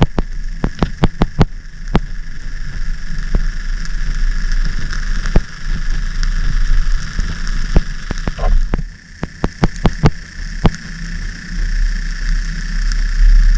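A GoPro Hero 10's own internal noise picked up through its sealed underwater housing: a steady high whine over a low hum, broken by irregular sharp clicks, most of them in quick clusters near the start and about ten seconds in. This is the fault the owner hears only when the camera is in the housing; without it the recording is normal.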